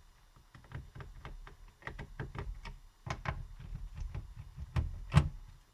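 Screwdriver backing screws out of a laptop's plastic bottom case: a string of small, irregular clicks and ticks, with one louder tap about five seconds in.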